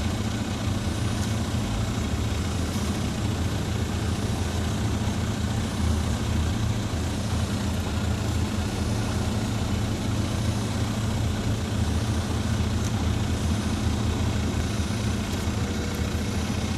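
Heavy snow-clearing machine's diesel engine running steadily, a deep, even drone.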